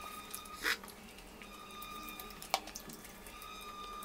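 Faint eating sounds: fingers handling chicken biryani on a plate and pulling apart a piece of chicken, with soft mouth noises and small ticks. Two short sharp sounds come through, one under a second in and one past two and a half seconds.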